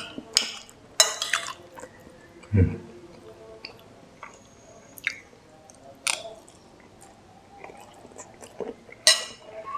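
A person eating fried noodles close to the microphone: wet chewing and mouth noises, with the spoon and fork clicking and scraping in the bowl. A short slurp of noodles comes near the end.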